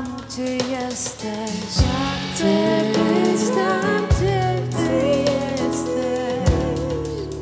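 Live worship music: singing with vibrato over a band, with a few drum hits.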